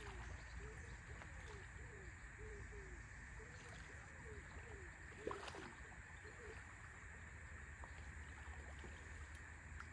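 Faint riverbank ambience: a steady hiss of moving water and wind, with a short falling call repeated irregularly over the first two-thirds and two sharp clicks, one at the start and one about five seconds in.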